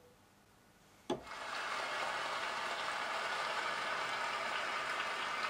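FL Studio Flex plugin's General MIDI 'Applause' preset played from a MIDI keyboard at a low pitch: synthetic applause that starts abruptly about a second in and runs as a steady, dense hiss.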